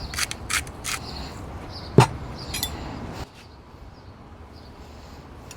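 Asparagus slaw being tossed in a bowl: a utensil knocks against the bowl several times in quick succession, then a single louder clink about two seconds in, followed by a few fainter taps.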